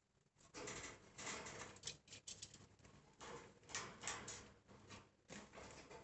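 Caged budgerigars making soft, scratchy sounds in a few short bursts.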